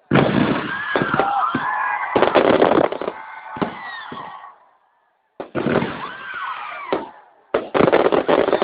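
Aerial fireworks going off in rapid volleys of bangs and crackling. The sound cuts out suddenly for under a second about halfway through, then the volleys resume.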